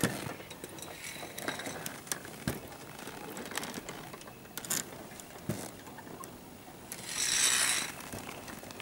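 Old wooden planks of a mountain suspension bridge creaking and knocking underfoot, with scattered sharp clicks. A brief, louder rush of noise comes near the end.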